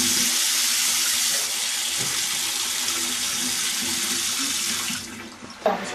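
Water running steadily in a shower, an even hiss that starts abruptly and dies away about five seconds in.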